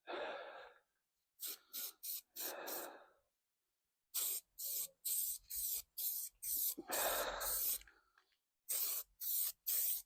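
Aerosol can of primer spraying in a run of short bursts, about two a second, with one longer spray about seven seconds in.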